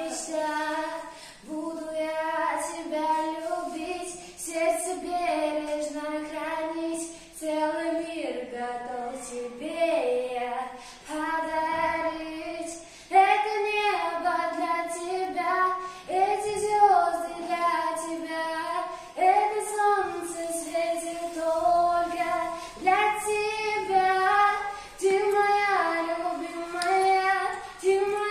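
A girl singing a song in short phrases of held notes.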